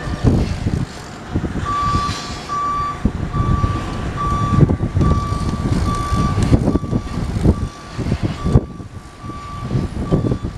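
Gantry crane's motion warning alarm: a steady high beep repeating nearly twice a second, starting about two seconds in. Under it runs the low rumble of heavy machinery.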